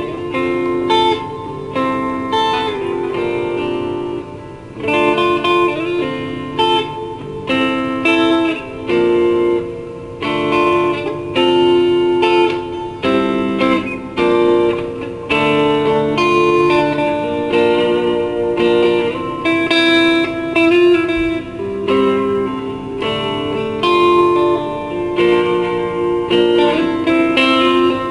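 PRS S2 electric guitar with Bare Knuckles pickups, played through a PRS amplifier and Altec speaker with reverb and delay. Chords and single notes are picked in a loose improvised jam, with a short let-up about four seconds in.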